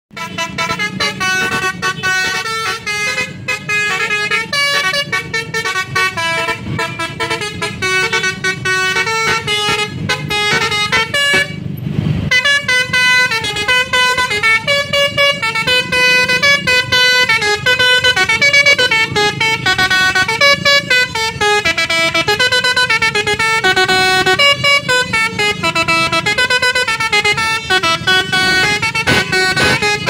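A tour bus's basuri telolet horn set playing a fast tune of many short notes, several horn tones sounding together, with a brief break about twelve seconds in.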